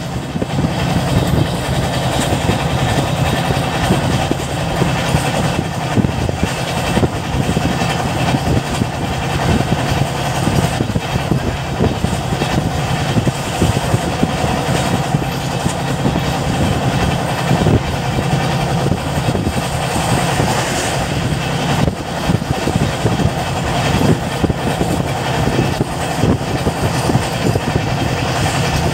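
Passenger express train running at speed, heard from inside a carriage: a steady low rumble of wheels on the track with a continual light clatter, unbroken throughout.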